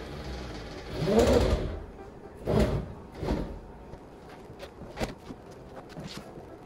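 Cordless drill driving screws into a wooden counter in three short bursts, the first and longest about a second in. A few light knocks of wood being handled follow.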